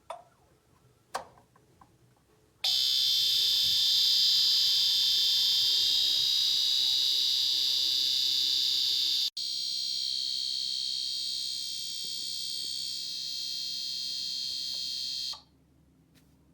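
De'Longhi HMP1500 mica panel heater giving a loud, high-pitched electrical buzz that starts abruptly after a couple of light clicks, breaks for an instant partway through, goes on a little quieter, then cuts off abruptly near the end. This intermittent buzz is the fault the owner is trying to trace; it comes and goes with the thermostat setting while the power light stays on.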